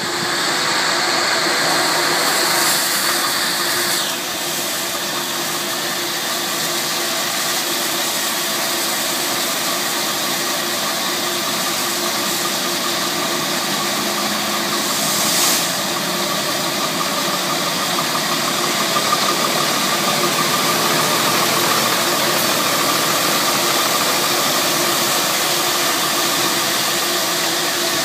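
Iveco Stralis truck's diesel engine idling as it creeps through an automated deluge wash, with water jets spraying steadily against its wheels and underbody.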